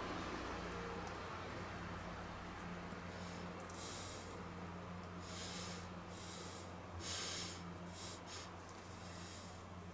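A person breathing out through the nose in short hissing puffs, about seven of them in the second half, over a steady low electrical hum.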